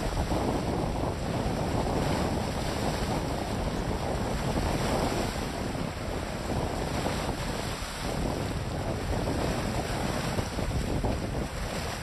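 Gusty wind blowing on the microphone, over the sound of choppy lake water washing in small waves.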